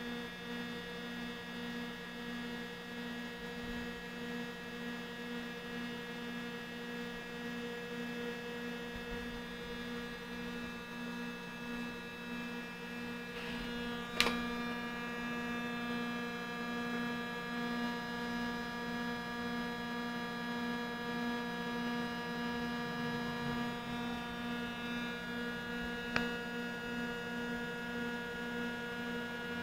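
Konica Minolta Bizhub C250 colour copier making a steady droning hum made of several held tones, its lowest tone pulsing slightly, with a sharp click about halfway through and another near the end. This is the horrible noise the machine makes on start-up or colour copying, which the owner finds followed by P-5 to P-9 and P-28 errors and grey copies.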